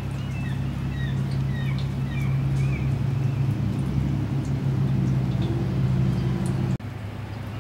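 Steady low motor hum that cuts off abruptly near the end, with small birds chirping over it in the first few seconds.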